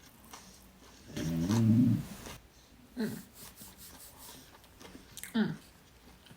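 A person's stomach growling: a low, wavering gurgle that starts about a second in and lasts nearly a second, followed by two short falling gurgles near the middle and near the end.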